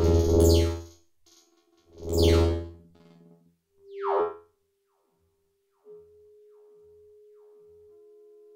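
Barking Wombat software synthesizer (a subtractive VST synth) playing loud swelling notes, each with a sweep falling from high to low. About six seconds in it settles into a quiet steady held tone.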